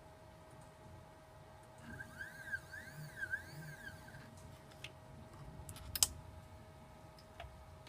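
Stepper motors of a small DIY CNC machine whining as the axes move, the pitch rising and falling over and over for about two seconds, over a faint steady hum. A few sharp clicks follow, the loudest about six seconds in.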